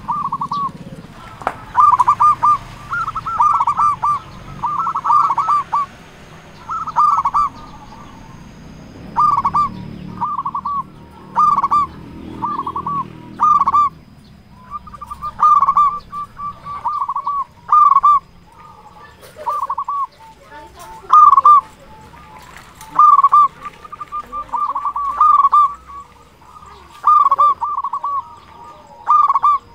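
Zebra dove (perkutut) cooing over and over: short phrases of quick, bubbling coo notes, one every second or two.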